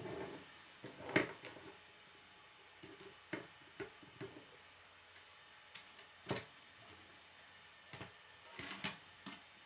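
K'nex plastic rods and connectors clicking and knocking as they are handled and snapped together: a scattered series of sharp clicks, the loudest about a second in.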